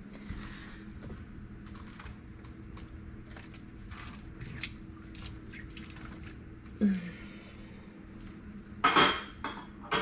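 CLR cleaner poured into the bottom of a dishwasher tub: faint liquid splashing and dripping. Near the end come three or four loud clattering knocks from the dishwasher rack and dishes.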